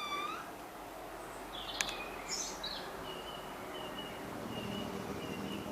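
Faint outdoor background noise with a few short bird chirps about two seconds in, then a thin high call repeated in short dashes.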